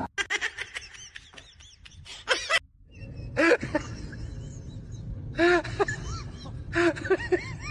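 Husky vocalizing in short yowls, each rising then falling in pitch, about four of them in the second half, over a low steady background rumble.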